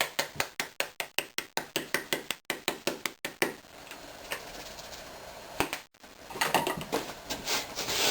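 A container of dried parsley being shaken out in quick rattling strokes, about six a second for the first few seconds, followed by a quieter gap and then a denser scratchy rattle of more shaking near the end.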